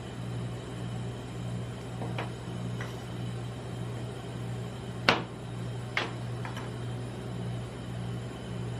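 Metal spatulas tapping on a rolled-ice-cream cold plate: a handful of short sharp clicks, the loudest about five seconds in, over a steady low hum.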